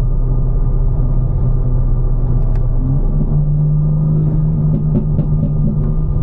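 Tuned BMW M4's twin-turbo straight-six engine droning steadily while driving, its note stepping up slightly about three seconds in.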